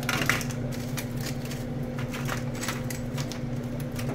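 Metal tongs clicking and scraping on a wire fry basket as fried French fries are tipped out and tumble into an aluminium foil bowl: a string of light clicks and rattles over a steady low hum.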